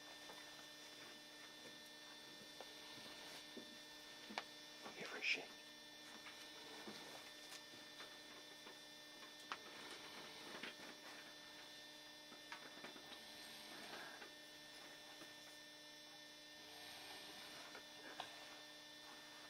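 Steady electrical hum, faint and even, with a few soft scattered clicks.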